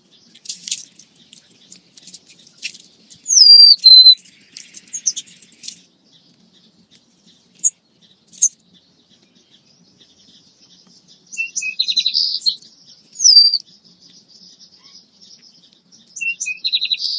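Small songbirds calling: scattered sharp chips, a few short whistled notes that slide downward, and quick buzzy runs of notes around two-thirds of the way through and at the very end.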